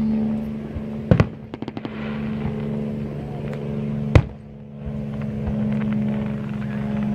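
Aerial fireworks shells bursting: two booms close together about a second in, a quick string of crackles, then one sharp bang about four seconds in. Under them runs the steady hum of an idling engine.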